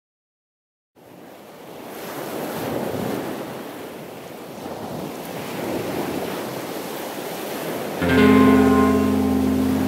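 About a second of silence, then a rushing noise that swells and ebbs, like surf, opening an atmospheric black metal track. Near the end a held guitar chord comes in loudly over it.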